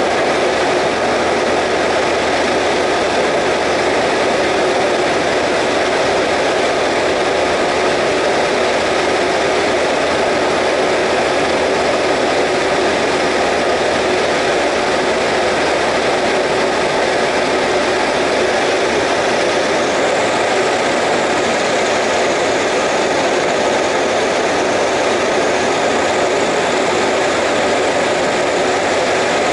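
Single-engine light aircraft's piston engine and propeller running steadily, heard inside the cockpit together with the rush of air, loud and even throughout, with a slight change in tone about two-thirds of the way through.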